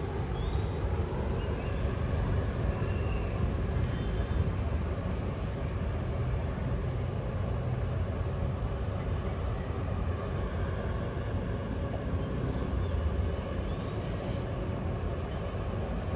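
Steady low outdoor rumble throughout, with a few faint, short high chirps near the start and again near the end.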